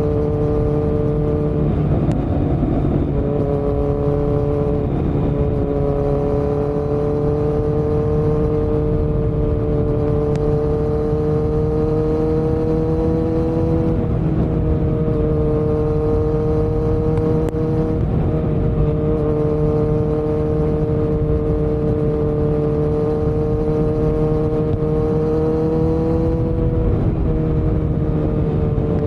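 Kawasaki Z900's inline-four engine running through a Yoshimura muffler and Delkevic headers with no dB killer, under way at fairly steady revs. The pitch creeps slowly upward and dips briefly a few times, near two, five, fourteen, eighteen and twenty-seven seconds in.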